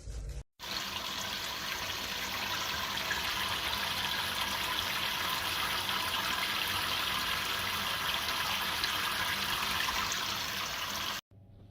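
Steady rush of running water that starts suddenly about half a second in and cuts off just as suddenly near the end.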